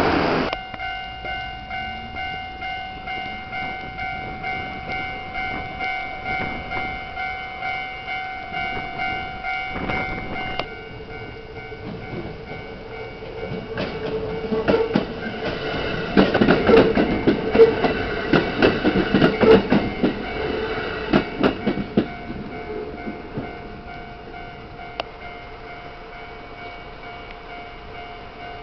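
Japanese level-crossing warning bells ringing in a steady, fast ding-ding rhythm, about two strokes a second, their tone changing about ten seconds in. A Kintetsu electric train passes over the crossing in the middle, its wheels clattering over the rail joints, and this is the loudest part; the bells keep ringing after it has gone by.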